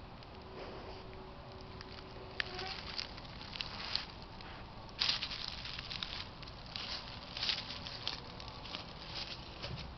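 Irregular rustling and crackling close to a trail camera's built-in microphone, with a sharper cluster about halfway through: an animal moving or foraging in ground litter.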